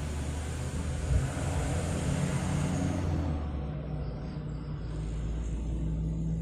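A road vehicle passing close by, its tyre and engine noise with a low rumble swelling and then fading away over a few seconds, with a brief thump about a second in.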